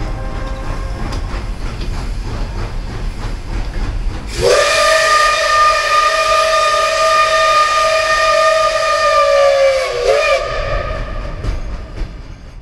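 Whistle of an Er-series steam locomotive blowing one long, steady, loud note for about six seconds. It comes in about four seconds in with a quick rise in pitch, and sags in pitch just before it stops. A low rumble from the train is heard before and after it.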